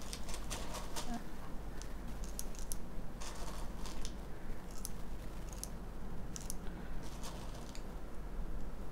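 .177 steel BBs clicking as they are picked from a small plastic box and dropped one at a time into a CO2 BB pistol's stick magazine: light, irregular clicks, a few a second.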